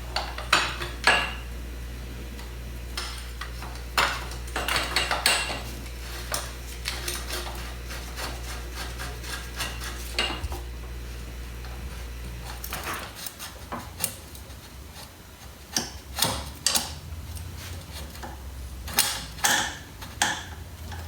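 Scattered light metallic clinks and knocks of tools and small parts being handled, over a steady low hum that stops about thirteen seconds in.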